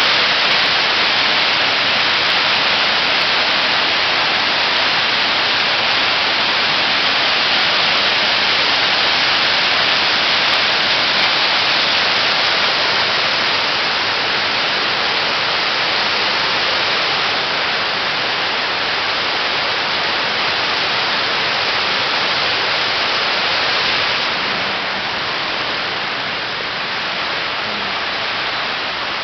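Rushing mountain stream: water tumbling over rocks in a loud, steady hiss, a little quieter near the end.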